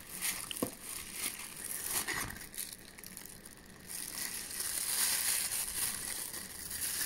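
Thin plastic bag crinkling as it is handled around a pair of binoculars: scattered crackles at first, growing louder and denser about halfway through.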